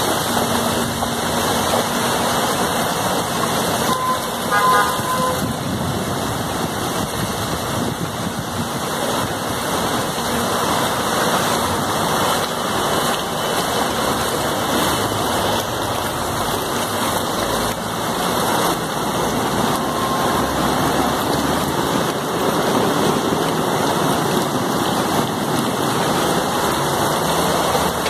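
Rushing floodwater and heavy rain on a street, a loud steady wash of water. A vehicle horn gives a short toot about four and a half seconds in.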